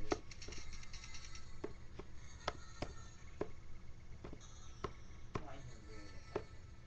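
Irregular taps and clicks, roughly one every half second to a second, from fingers pressing the pads of a button-grid MIDI controller, over a faint held tone.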